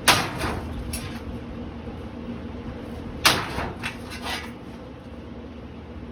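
Two heavy blows from the wide end of an axe striking a Litex Schuster hugger ceiling fan, about three seconds apart, each followed by rattling and clattering of the fan's housing and parts.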